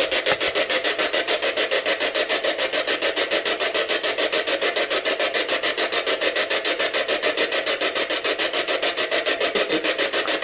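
Spirit box scanning through radio stations: hissing static chopped into rapid, even pulses, about seven a second.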